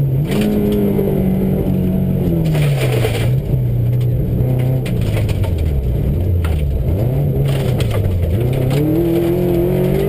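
Subaru rally car's flat-four engine heard from inside the cabin on a gravel stage, its revs falling and rising as it lifts off and accelerates again. There is a brief rush of gravel noise from the tyres about two and a half seconds in.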